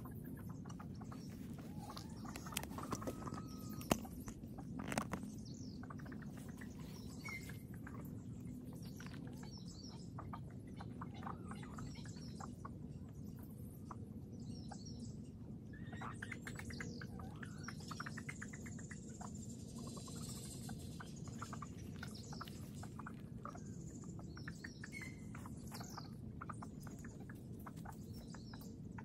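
Birds chirping now and then over a steady low outdoor hum, with many soft crackling clicks from a rabbit nibbling grass and moving through it close by. A few sharper taps come around four to five seconds in.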